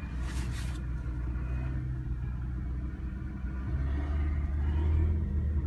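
Engine running, heard from inside a car's cabin: a steady low rumble that grows louder about four seconds in, with a brief hiss near the start.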